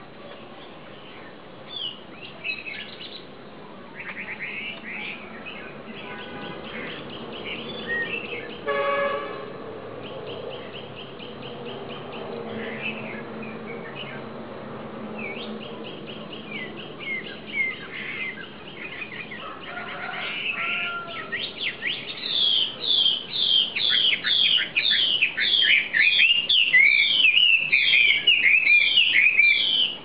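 Caged wambi songbird singing: assorted chirps and quick trills, then, about two-thirds of the way in, a loud run of repeated whistled notes, about two a second, each sweeping down in pitch.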